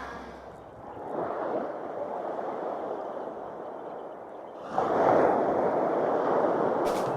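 Sea waves washing up on a beach, with a louder wave breaking about five seconds in.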